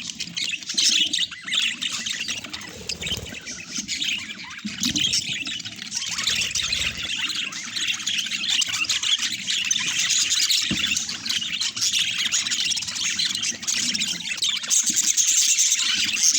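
Pet budgerigars chattering, with continuous overlapping chirps, warbles and squawks.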